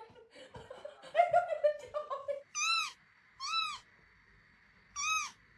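A domestic cat meowing three times, each short call rising and then falling in pitch.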